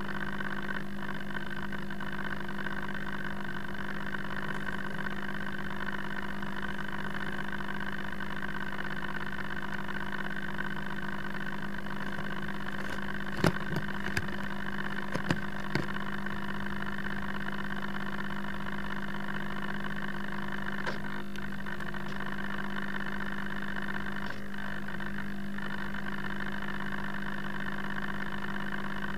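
Steady electrical hum with several fixed pitches, picked up by the FPV plane's onboard camera, with a few sharp clicks about halfway through.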